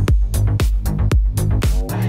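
Electronic dance music with a fast, steady kick-drum beat and chords.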